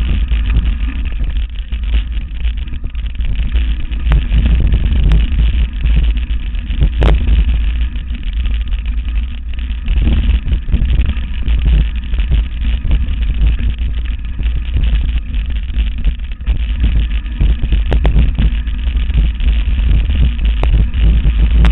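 Mountain bike towed fast over a rough forest trail: a loud, steady low rumble of wind and jolting on the microphone, with scattered rattles and knocks from the bike.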